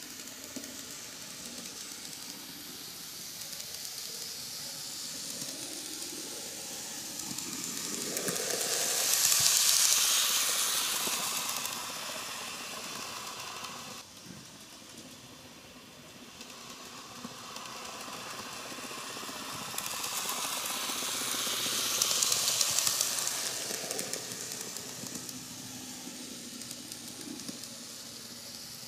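An N-gauge KATO D51 498 steam locomotive model running round the track: the whirring hiss of its small motor and wheels on the rails. It swells twice, loudest about a third of the way in and again about three-quarters of the way in, as the model passes close by.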